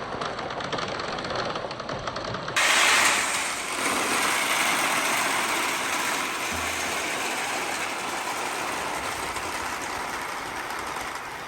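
Marbles and balls rolling and rattling along grooved wooden ramps, a continuous clatter of fine clicks. About two and a half seconds in, the sound changes abruptly and is louder for about a second, then settles into a steady rolling rattle.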